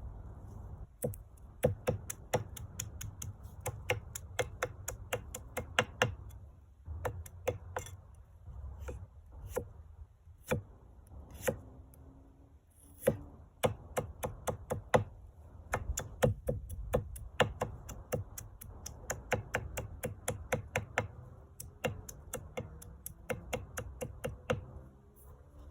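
A knife chopping on a cutting board: runs of quick, sharp strokes, about three or four a second, broken by short pauses.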